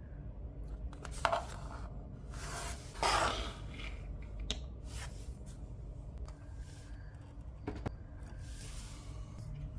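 Plastic LEGO pieces being handled and pressed together: a few sharp clicks and rustling scrapes over a low steady hum, the loudest rustle about three seconds in.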